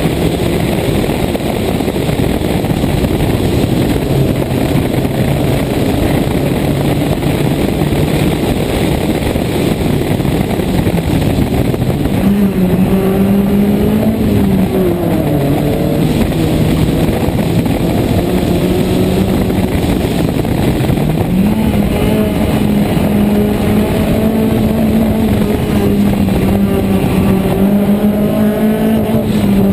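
Toyota Corolla 1.6 rally car's engine running hard through a stage, its pitch rising and falling with gear changes and corners, over a dense rushing noise, heard from a camera mounted outside on the bonnet.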